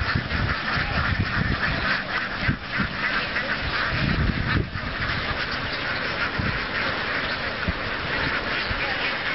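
A large flock of domestic ducks quacking all at once: a dense, continuous chorus of many overlapping calls.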